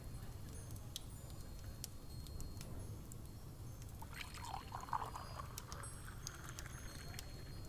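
Layered room-ambience soundscape: a steady low rumble with scattered faint clicks and short high tinkles, and a brief burst of mid-pitched sound about four to five seconds in.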